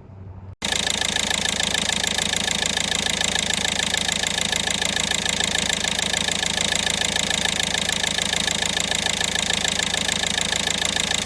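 Toyota D-4D diesel engine idling steadily with its clattering diesel knock. The sound comes in abruptly about half a second in.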